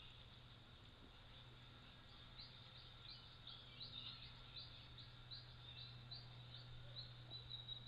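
Faint, quiet series of short, high, rising chirps from a bird, about three a second, starting a couple of seconds in and giving way near the end to a steady high-pitched tone.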